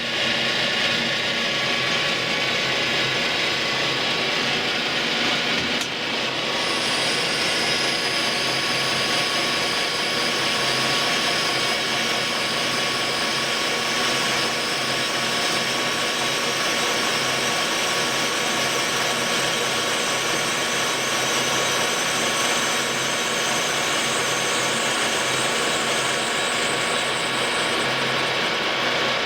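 Colchester metal lathe running steadily, its geared headstock making a dense mechanical whine with many fixed tones, while it turns a taper using the taper turning attachment. A brighter hiss joins about six seconds in.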